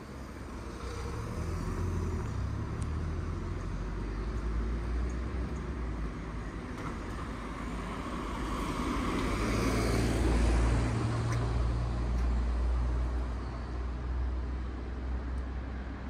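City street traffic: car engines and tyres running steadily, with one vehicle passing close and loudest about two-thirds of the way through.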